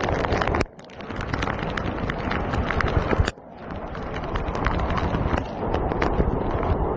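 Rushing floodwater heard through a phone microphone: a dense, loud rush peppered with sharp crackles. It breaks off abruptly under a second in and again about three seconds in, then resumes.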